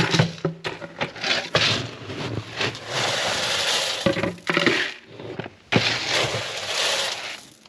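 Dry grain being scooped and poured: rattling, hissing pours of feed, the longest two lasting a second or more, with knocks of the scoop and container in between.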